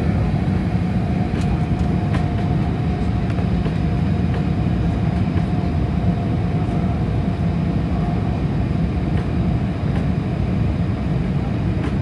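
Airliner cabin noise during the descent: a steady, loud drone of the engines and airflow, with a faint steady whine above it.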